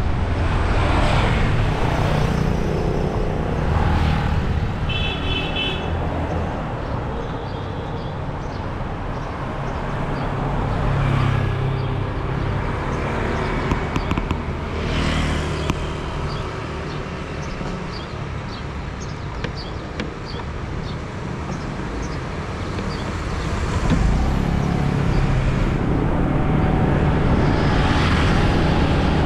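Busy road traffic with vehicles passing close by in swells over a steady engine rumble, and a short horn toot about five seconds in.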